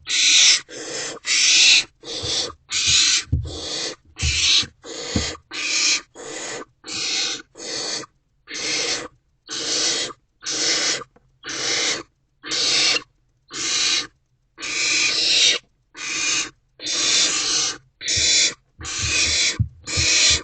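Barn owlets hissing in the nest box in a steady rhythm, about one and a half rasping hisses a second, each about half a second long. This is the barn owl chick's food-begging hiss.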